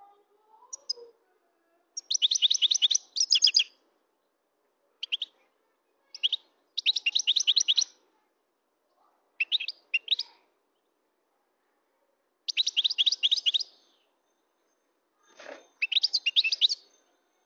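European goldfinch singing: about seven short phrases of fast, high twittering notes, with pauses of one to two seconds between them.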